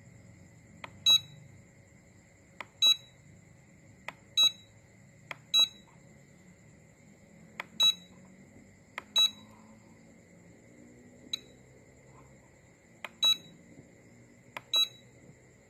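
Battery spot welder's control buzzer giving eight short, high-pitched beeps as its setting knob is worked, each beep following a sharp little click, with a longer pause midway. A faint steady electronic whine runs underneath.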